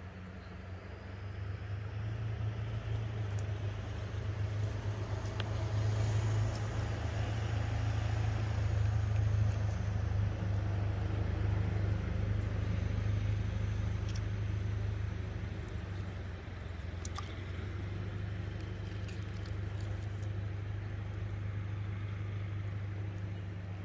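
A distant engine drones with a steady low hum. It grows louder for about ten seconds, then eases off, as if passing by. A few faint clicks and knocks sound over it.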